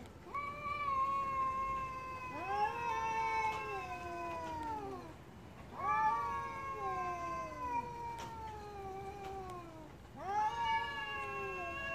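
Two cats yowling back and forth in long, drawn-out wails, several calls of a few seconds each that slide down in pitch at their ends, sometimes overlapping.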